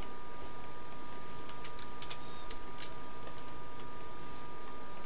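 Scattered light computer mouse clicks, several bunched together a couple of seconds in, over a steady two-note electrical whine and background hiss.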